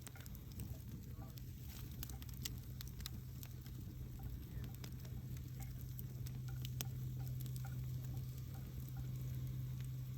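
Wood fire crackling, with irregular small pops and snaps scattered throughout over a low, steady hum.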